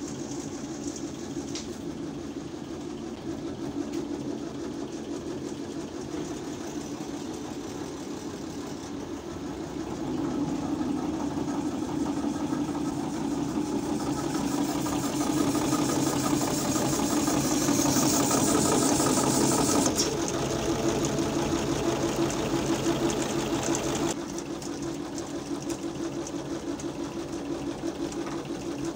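A machine motor running steadily with a fast, even rhythm. It grows louder from about ten seconds in and drops back in two steps, near twenty and twenty-four seconds.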